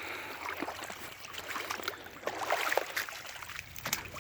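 Water trickling, with scattered small crackles and splashes of wet ground and brush.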